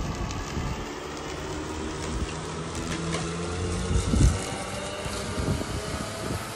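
Walk-behind lawn mower running steadily as it is pushed across grass, a constant hum with a steady whine. A loud low buffeting thump about four seconds in.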